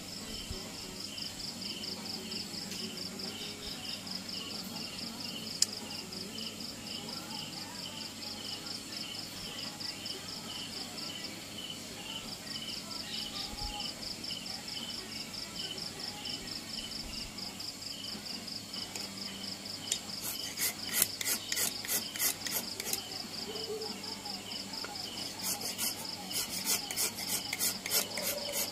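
A steady high chirping of insects, with quick strokes of a file or rasp on the wooden keris hilt coming in in two short runs, about four strokes a second, in the last third.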